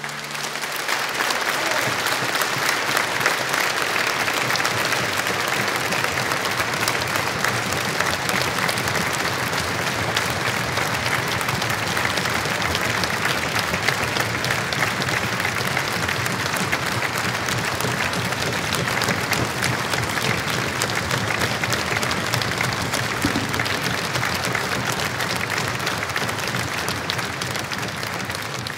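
Audience applauding: a dense, steady clapping that keeps up without a break.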